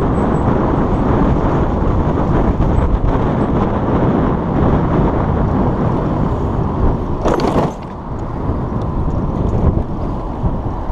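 Busy street traffic noise, a steady rumble of passing vehicles, with a short sharp hiss about seven seconds in, after which the traffic grows somewhat quieter.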